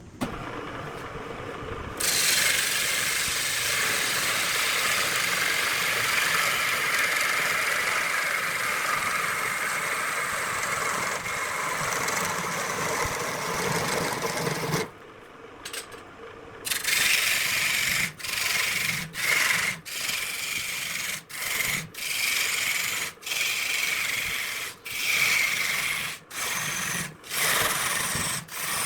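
Wood being scraped or sanded as it spins on a wood lathe: a long steady rasping scrape, then after a brief pause a run of short strokes about one a second.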